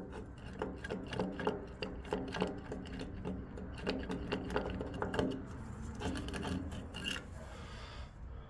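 Chain Monkey chain-tension gauge's threaded adjuster being wound by hand: a rapid, irregular run of clicks and rubbing that eases off about seven seconds in.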